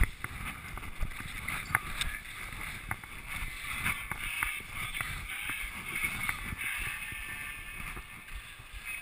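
Skis sliding and scraping over wind-packed snow in a steady hiss, with a few sharp clicks in the first couple of seconds and low wind rumble on the microphone.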